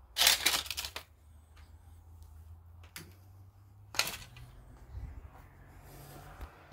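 Footsteps crunching and clattering over broken plaster and debris on a floor, with a loud crunch just after the start and another about four seconds in, and a few lighter clicks between.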